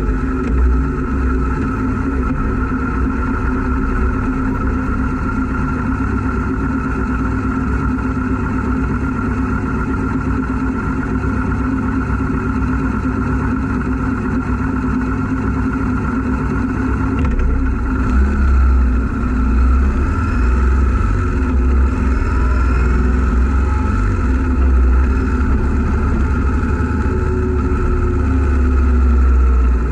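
2012 Yamaha 950 cruiser's V-twin engine running in traffic, heard up close with a low rumble of wind and road noise. The engine note gets louder in the second half and again near the end as the bike picks up speed.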